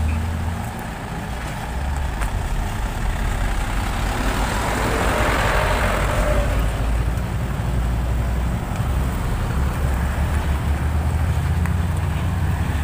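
Road traffic on a wet road: a steady low rumble of truck and car engines moving slowly past, with tyre hiss on wet asphalt swelling and fading as a vehicle passes about five seconds in.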